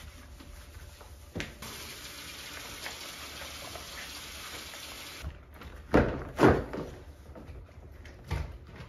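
Bathroom sink faucet running in a steady stream for about four seconds, then loud thumps on the countertop, the loudest two close together about six seconds in and another near the end.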